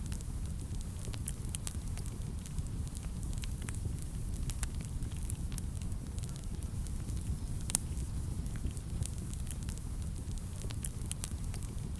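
Wood fire burning in a fireplace: a steady low rumble of the flames with scattered sharp crackles and pops, one louder pop a little before the end.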